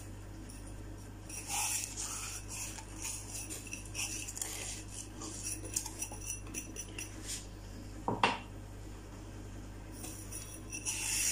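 Granulated sugar poured from a drinking glass onto butter in a glazed clay bowl, heard as several short, sandy, hissing pours. There is a single clink of glass about eight seconds in.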